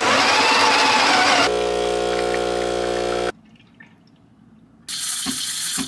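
Home espresso machine's pump running as a shot is pulled: a rushing, gurgling stretch, then a steady buzz that stops abruptly about three seconds in. After a short quiet, a burst of hissing near the end.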